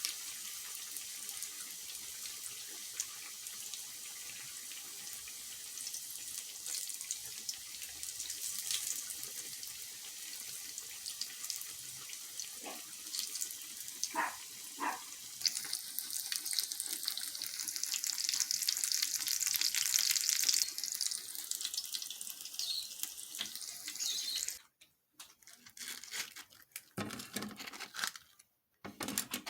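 Kitchen tap running water into a sink, a steady hiss that grows louder for a few seconds with its tone shifting near the end, then shut off; a few short clatters follow.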